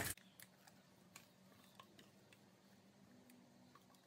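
Near silence: faint room tone with a few weak, scattered clicks.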